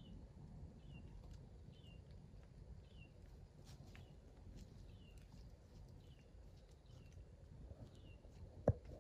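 A small bird repeating a short chirp about once a second over a faint low rustle, with one sharp knock near the end.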